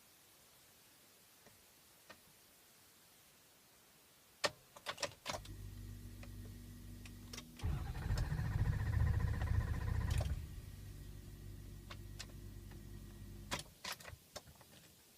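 Ford 6.0L Powerstroke diesel cranked on its starter for about three seconds without catching. A steady hum comes in before the crank and runs on after it, with a cluster of clicks at the start and another at the end, typical of a hot 6.0 that needs several tries to restart.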